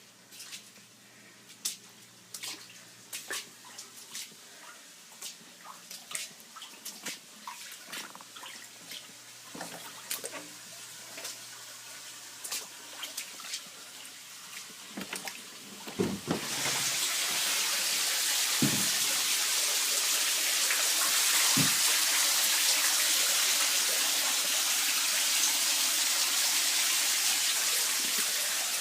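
Water in a flooding basement: scattered irregular drips and ticks, then about sixteen seconds in a loud steady rush of running water starts and continues to near the end, with a few dull knocks early in the rush.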